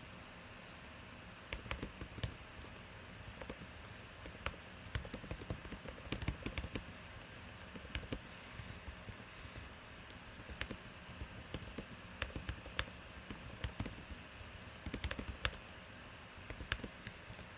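Typing on a computer keyboard: irregular key clicks in short runs and pauses, as a message is typed.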